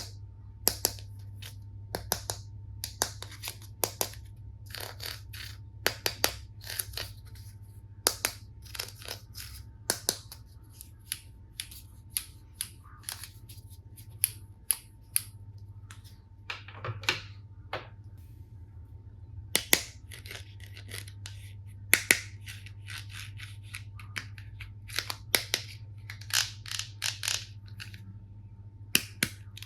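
Plastic toy tool-set pieces and packaging being handled: many sharp, irregular clicks and taps with a few short rustles, over a faint steady low hum.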